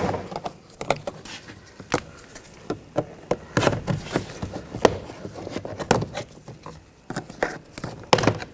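Plastic trim tool prying a car door trim panel loose: irregular sharp clicks, snaps and scrapes of hard plastic against the panel and its retaining clips.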